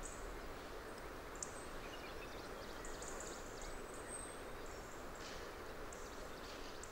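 Faint outdoor ambience: a steady hiss with short, very high chirps now and then.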